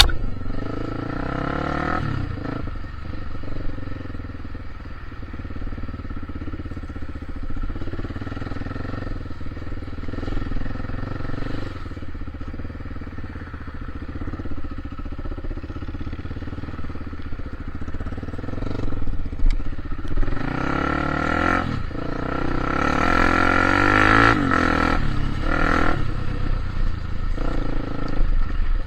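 Vehicle engine running under way at low speed, its pitch rising and falling, working harder and louder from about twenty seconds in.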